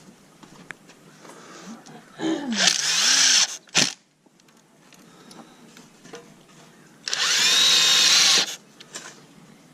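Power drill driving screws into the wooden window frame, running in two bursts of about a second and a half each, speeding up at the start of each. A sharp knock follows the first burst.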